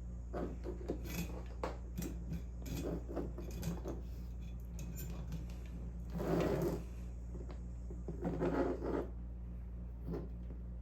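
Objects being handled and moved about on a workbench: a run of small clicks and knocks, then two longer scraping, rubbing stretches about six and eight seconds in. A steady low electrical hum runs underneath.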